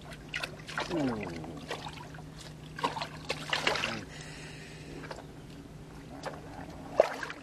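Water splashing as a hooked fish thrashes at the surface and is scooped up in a landing net, with the loudest splashes about three to four seconds in and a sharp click near the end. A steady low hum runs underneath.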